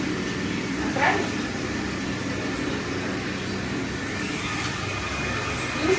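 Robot vacuum cleaner running with a steady motor hum, and a brief higher-pitched sound about a second in.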